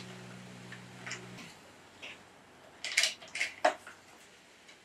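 A few light metallic clicks and clacks, about three seconds in, from handling and loading an Air Venturi Avenger Bullpup PCP air rifle. A steady low hum stops about a second and a half in.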